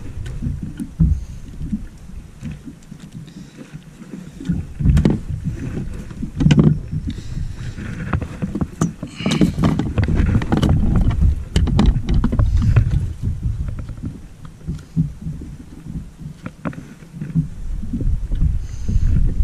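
Irregular knocks, clicks and scrapes of gear being handled aboard a kayak, over a steady low rumble of wind and water on the microphone.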